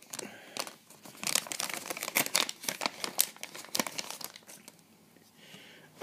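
Plastic packaging crinkling and tearing as a product box is unwrapped: a run of irregular crackles that thins out about a second before the end.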